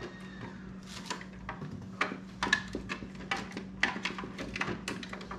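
Irregular clicks and light knocks of hand tools and the table saw's plastic housing being handled as its rear panel is opened to reach the wiring.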